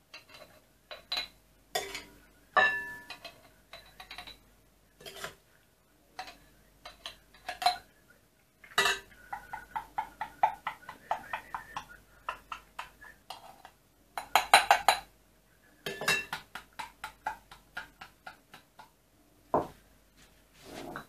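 Small glass jars and a glass bowl clinking and tapping as pieces of blanched porcini are packed into a jar by hand: a string of sharp clicks, with quicker runs of clicks around the middle.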